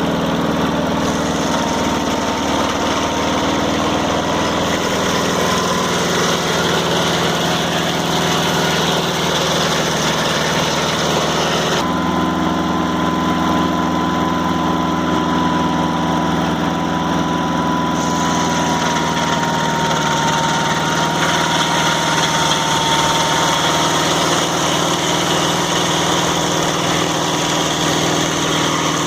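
Engine of a Mobile Dimension sawmill running steadily, with a thin, nearly constant whine over it. The sound changes abruptly about twelve seconds in.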